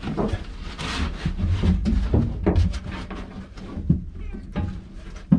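Irregular knocks, scrapes and rubbing as an old through-hull hose or fitting is wrestled loose by hand, with a sharp knock near the end.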